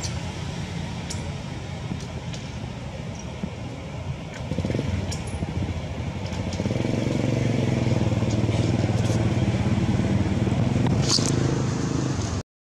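A motorbike engine running steadily, getting louder about six and a half seconds in and holding there, with a few light clicks over it. The sound cuts out abruptly near the end.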